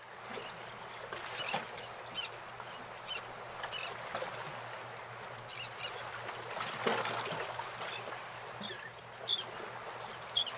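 Koi splashing and gulping at the water's surface as they crowd in to feed, with a scatter of short high chirps through it.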